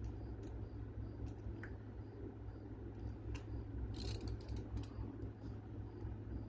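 Small metal clicks of a socket and extension being handled, then a ratchet wrench clicking in a quick run about four seconds in, over a steady low hum.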